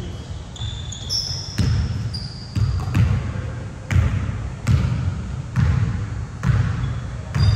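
A basketball being dribbled on a gym court, a thump roughly every second. Short high sneaker squeaks on the court come in the first couple of seconds.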